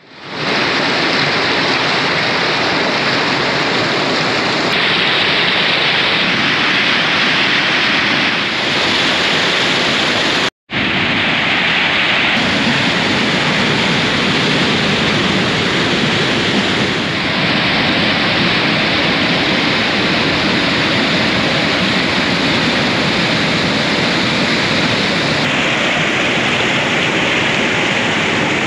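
Glacial meltwater stream rushing and churning over rocks: a loud, steady whitewater rush. It cuts out for an instant about ten and a half seconds in.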